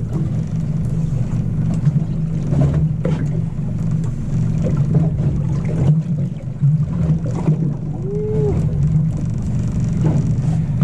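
Boat's engine running steadily, with scattered knocks and clicks and one short squeak about eight seconds in.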